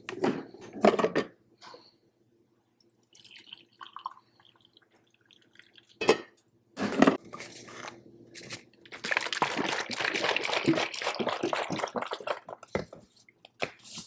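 A glass mug clinks against a granite countertop in the first second. About six seconds in come a couple of knocks, then roughly three seconds of liquid sloshing and splashing as coffee is made in the mug.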